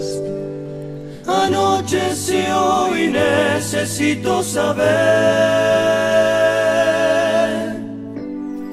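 Recorded song: male voices singing in harmony over a steady bass line, moving into a long held note with vibrato about five seconds in that softens near the end.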